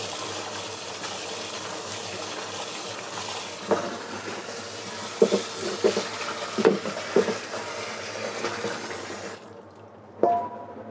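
Tap water running into a sink while a cooking pot is rinsed, with several knocks of the pot against the sink. The tap shuts off about nine seconds in, followed by one metallic clank that rings briefly as the pot is set down.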